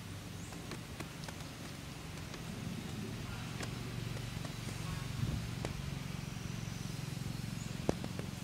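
Outdoor background: a steady low hum that grows a little louder about three seconds in, with scattered sharp clicks and taps, the loudest near the end.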